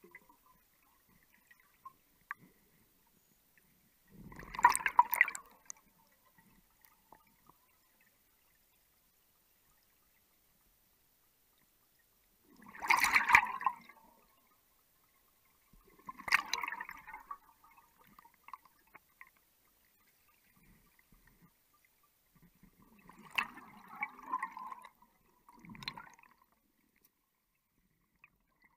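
Underwater bubbling from a diver's gear, in several short bursts a few seconds apart, with quiet in between.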